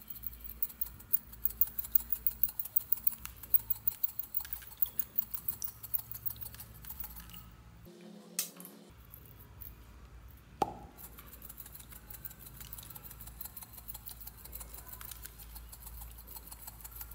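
Star-shaped plastic confetti rattling as it is shaken out of a small bottle in quick shakes, several a second, pattering onto slime. A brief low hum comes about eight seconds in and a single sharp click a little before eleven seconds. Then a second bottle of stars is shaken in fainter, faster rattles.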